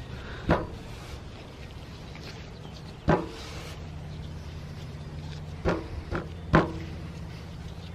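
Gloved hands working styrofoam-and-acetone slime against a metal tabletop: five sharp knocks, most with a brief metallic ring, over a steady low hum.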